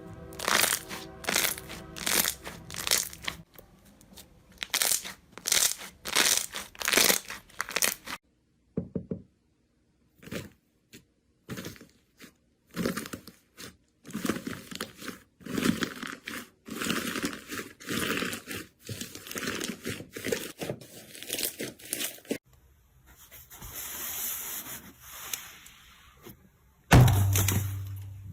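Slime being pressed, poked and squeezed by hand: runs of quick sticky crackles and pops, with a short near-silent pause and a stretch of steady hiss later on.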